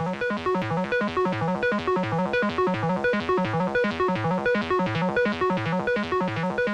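Background music: a fast, steady run of short repeating notes over a bouncing bass line.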